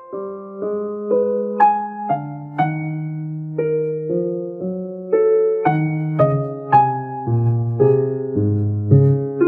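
Background music: a keyboard playing a tune of single notes and chords, a new note or chord struck about every half second.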